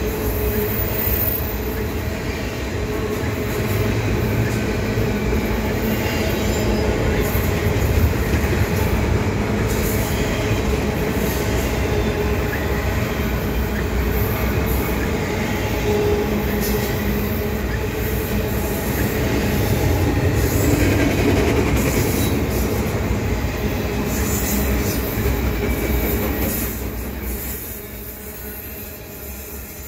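Double-stack container train's loaded well cars rolling past close by, a steady rumble and clatter of steel wheels on rail with a thin squeal from the wheels. The sound fades over the last few seconds.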